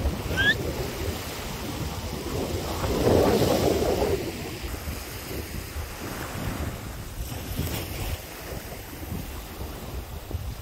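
Steady wind noise mixed with the wash of surf, swelling louder about three seconds in. A brief rising chirp sounds right at the start.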